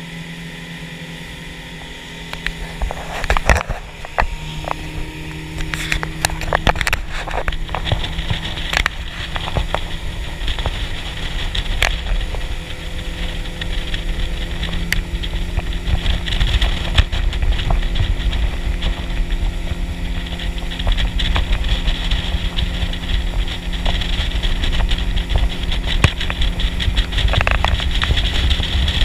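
A boat motor running steadily under a hiss of water and wind. Its pitch and level step up a little a few seconds in, and some knocks and clatter come through around three to nine seconds in.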